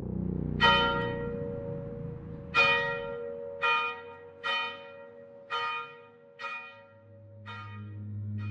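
A bell struck seven times at uneven intervals, each strike ringing and dying away. A low steady drone swells in near the end.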